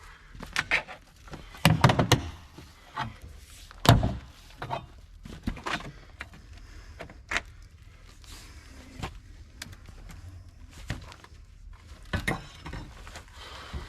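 Irregular knocks, thuds and scraping as mobile home skirting and its nailed 2x4 are pried loose, the nails tough to pull out. The two heaviest thuds come about two and four seconds in.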